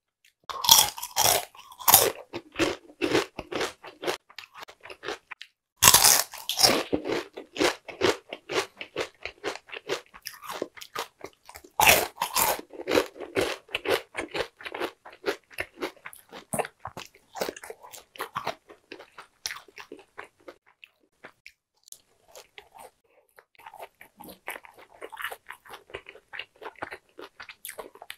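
Close-miked crunching of fried chicken skin being bitten and chewed: three loud crisp bites, near the start, about six seconds in and about twelve seconds in, each followed by fast crackly chewing. The chewing grows softer and wetter over the last several seconds.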